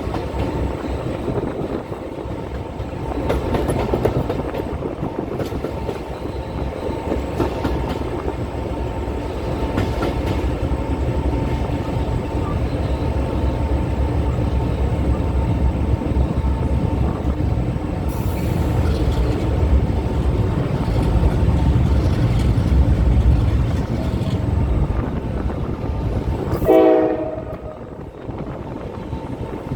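Train running on the tracks with a steady rumble, and a short horn blast near the end.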